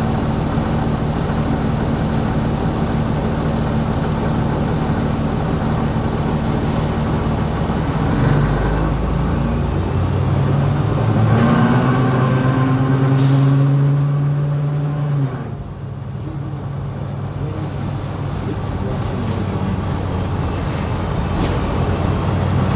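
Interior sound of a New Flyer XD60 articulated city bus under way: the drivetrain drones steadily, then its pitch climbs as the bus pulls away, with a short air hiss about 13 seconds in. The drone cuts back suddenly a couple of seconds later and builds again toward the end.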